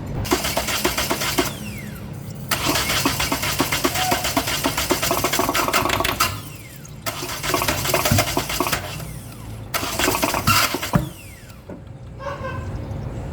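Hyundai Accent CRDi common-rail diesel engine being cranked by the starter in several separate bursts of a few seconds each, with short pauses between attempts, during a no-start fault being traced to injectors and the ECU.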